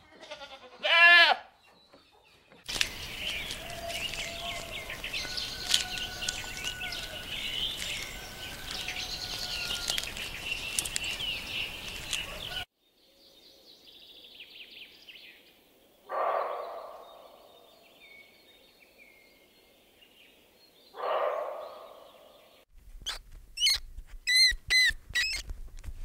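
A goat bleats once, briefly, about a second in, then a busy chorus of bird chirps runs for about ten seconds. A muntjac (barking deer) gives two loud, harsh barks about five seconds apart, and near the end a macaque makes several short, high squeaks.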